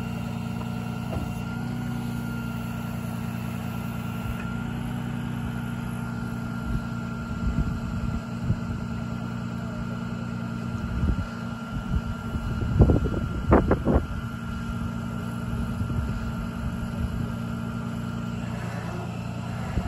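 Bucket truck's engine idling steadily, a low even hum with a faint steady whine above it. A few thumps and bumps break in, the loudest about two-thirds of the way through.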